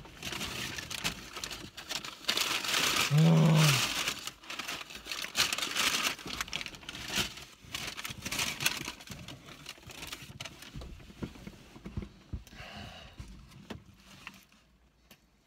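Paper burger wrapper from McDonald's crinkling and rustling in someone's hands, dense and irregular, dying away over the last few seconds. About three seconds in, a man's voice makes one short wordless sound.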